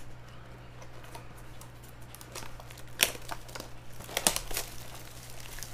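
Trading cards and card packaging being handled, crinkling and rustling, with a sharp snap about three seconds in and a quick cluster of clicks just over a second later.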